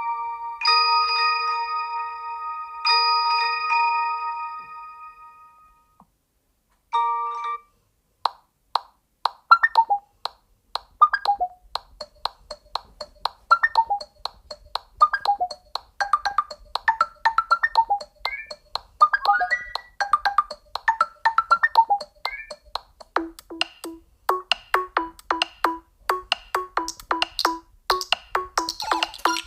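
Google Pixel 9 ringtones playing from the phone: a chime-like tone repeating about every two seconds and fading out, then after a short gap a fast melody of short mallet-like notes, with a lower repeating note joining about two-thirds of the way through.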